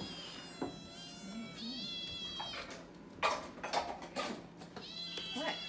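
A group of hungry kittens meowing over one another, many high-pitched overlapping meows begging for food. A few short sharp knocks come about three to four seconds in.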